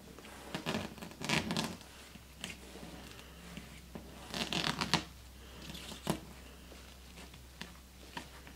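Tape being peeled off a painted board in several short ripping pulls, with rustling of the loose tape and a sharp click about six seconds in.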